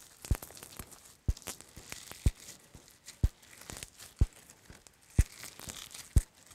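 Glossy slime mixed with crunchy sprinkle beads being squeezed and stretched by hand: a sticky, crackling rustle, with a sharp click about once a second.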